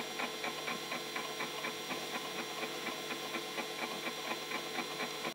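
A steady, fast mechanical ticking, about five ticks a second, over a constant hum.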